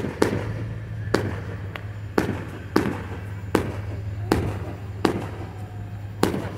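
Aerial fireworks bursting in a rapid series of about ten sharp bangs, roughly one every half second to second, each with a short echo trailing after it.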